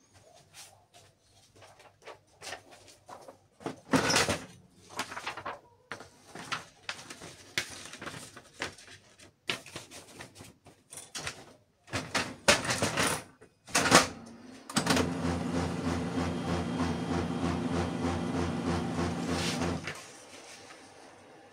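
Canon i-SENSYS LBP6670dn laser printer going through its power-on initialization: a string of clicks and clunks from its mechanism, with louder knocks about four and thirteen seconds in. Then its drive motor runs steadily for about five seconds with a regular pulsing hum, and stops as the printer reaches ready.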